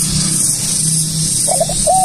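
Spotted dove (tekukur) cooing: about one and a half seconds in, a quick stutter of short notes leads into a drawn-out rising-and-falling coo, over a steady high hiss.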